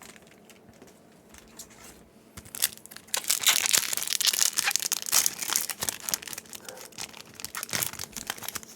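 Foil wrapper of a Yu-Gi-Oh booster pack being torn open and crinkled. After about two quiet seconds the crackling starts and runs on in a dense stream, loudest just after it begins.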